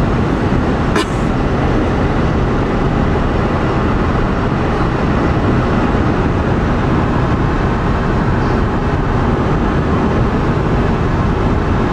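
Steady road and wind noise of a minivan driving at around 80 mph, with a brief click about a second in.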